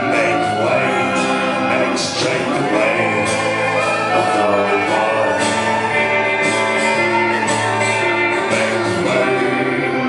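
Live band music with singing voices, full and steady throughout, with a few crashing accents.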